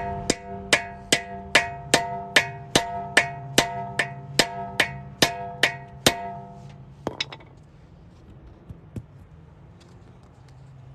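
Hammer blows on a locking lug nut removal socket, driving it onto a stubborn locking lug nut: about fifteen evenly paced strikes, roughly two and a half a second, each ringing like struck metal, stopping after about six seconds, followed by a couple of light clicks.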